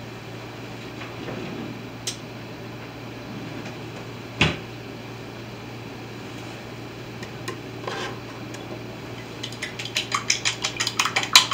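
A few separate knocks of kitchenware, one louder thump about four and a half seconds in, then from near the end a whisk beating an egg in a small bowl: a fast, even clicking of the whisk against the bowl, about five strokes a second. A steady low hum runs underneath.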